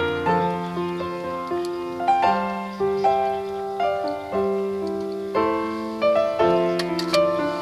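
Background piano music: a slow melody of single struck notes and chords, each fading after it is played.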